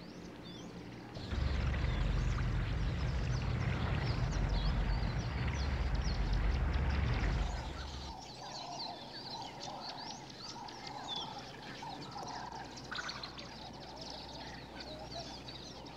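Tropical forest ambience with many birds chirping and calling, and a lower call repeated about once a second in the second half. A loud, low rushing rumble comes in just after the start and stops about halfway through.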